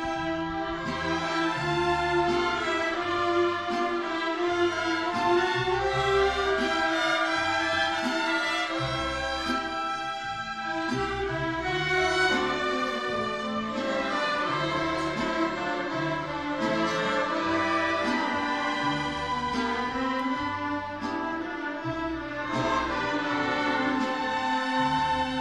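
Symphony orchestra and mariachi ensemble playing together. Bowed strings carry the melody over a regular pattern of low bass notes.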